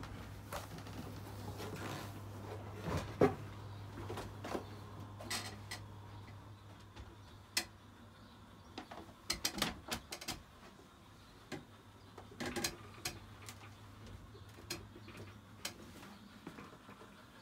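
Scattered knocks and clicks from someone moving about a small boat's cabin, with footfalls and light bumps coming in irregular clusters. A low steady hum runs underneath for the first six seconds or so, then fades.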